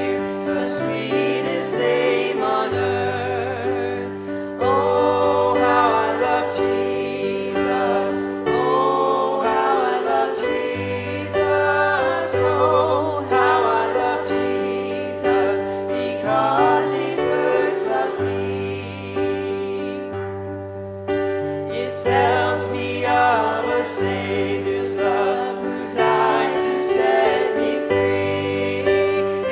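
Live church worship song: a woman and a man sing into microphones over strummed acoustic guitar, with long held bass notes changing every second or two underneath.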